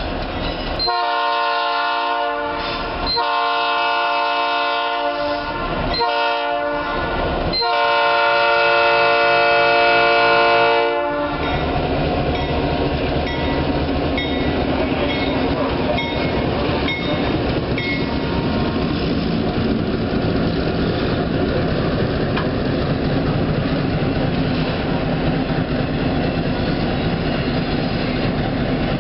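EMD GP7 diesel locomotive's air horn sounding the grade-crossing signal: two long blasts, a short one, then a final long blast held longest. The locomotive and its passenger cars then roll past with a steady rumble and rhythmic clicking of wheels over the rail joints.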